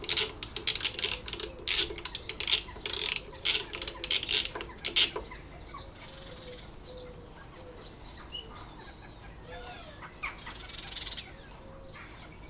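Socket ratchet clicking in rapid runs as it undoes a 13 mm rocker-assembly nut on a Fiat 500 cylinder head, stopping about five seconds in. After that there are only faint bird chirps.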